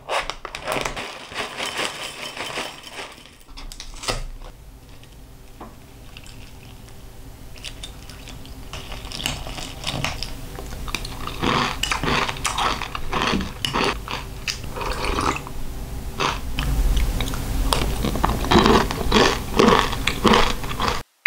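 Crunchy food being bitten and chewed: a run of short crunches and clicks, sparser about four seconds in and busier through the second half.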